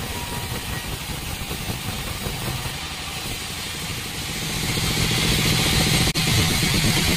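Sawmill band saw running steadily, growing louder about two-thirds of the way through as the blade cuts into the log, with a brief dropout near the end.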